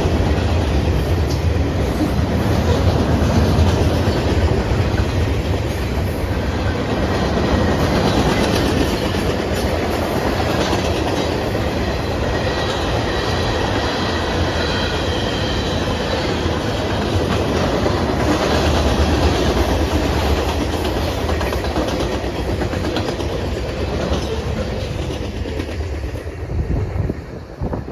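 Norfolk Southern manifest freight train's cars rolling past, the wheels clacking over the rail joints, with a faint high wheel squeal in the middle. The noise falls away sharply near the end as the train passes.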